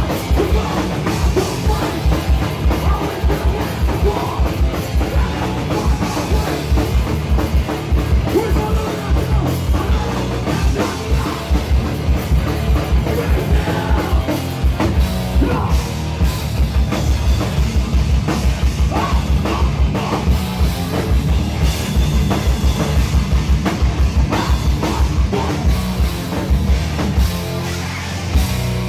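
Hardcore band playing live and loud: heavily distorted electric guitars and bass over drums with a rapid, driving kick drum.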